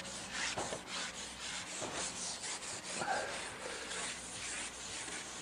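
Irregular rubbing and scraping as a carbon fishing pole is shipped back, sliding through the angler's hands and against his gear while a hooked fish is brought in.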